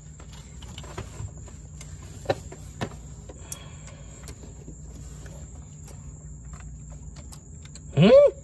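Scattered light clicks and taps of hands working a new solid aftermarket shifter cable bushing onto its bracket in a car's engine bay, which turns out to be a tight fit. Crickets chirr steadily in the background. Near the end comes a short, loud exclamation that rises sharply in pitch.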